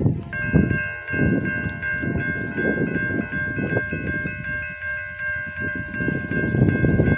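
A railroad crossing warning bell starts ringing about a third of a second in, as the crossing signals activate for an approaching train. It sounds as a steady ding repeated in quick, even strokes. Beneath it runs a gusty low rumble.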